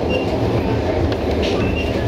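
Train running on rails: a steady loud rumble of wheels on track, with short high squeaks from the wheels.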